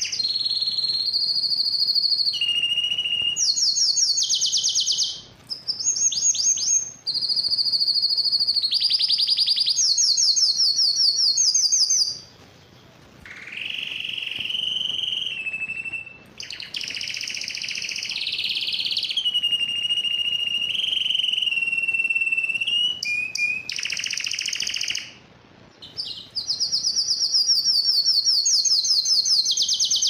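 Domestic canary singing a long song of rapid trills and held whistled notes, one phrase after another, with brief pauses about twelve seconds in, around sixteen seconds and about twenty-five seconds in.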